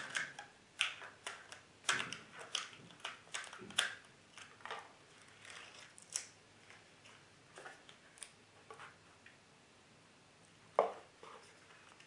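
Handling noise as a rubber band is slipped off a rolled fabric holster with a nylon webbing strap and the holster is unrolled: a quick run of rustles and small clicks for the first few seconds, then sparser soft rustles, and one louder knock near the end.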